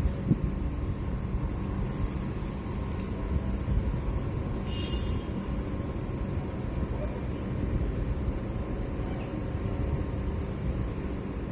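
Steady low rumble of outdoor street noise, with a brief faint high-pitched sound about five seconds in.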